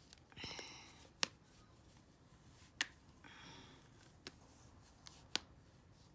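Compression stockings being pulled up the legs by hand: two short rustles of stretched fabric and three sharp snaps.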